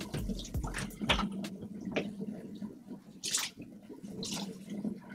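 Water dripping and splashing into a bathtub from freshly rinsed wet hair, the shower spray off: scattered drips with a few louder splats about a second apart.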